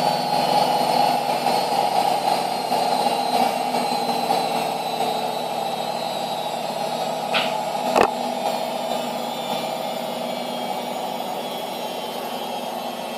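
Samsung EcoBubble washing machine on its final spin: a steady drum-and-motor whir and hum that slowly grows quieter, with a single sharp knock about eight seconds in.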